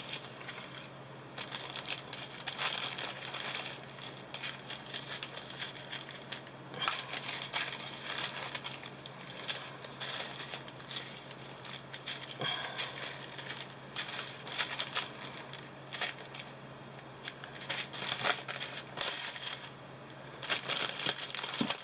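Small plastic bags of diamond painting drills crinkling and rustling as they are handled and sorted, in irregular bursts with small clicks.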